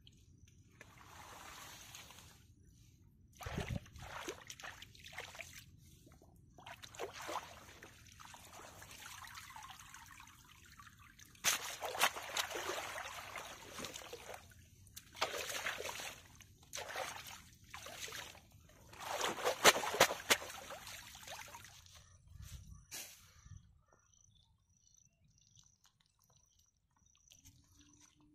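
Shallow water splashing, sloshing and trickling in irregular bursts as a bamboo basket fish trap is worked and lifted in an irrigation channel, loudest about halfway and two-thirds through.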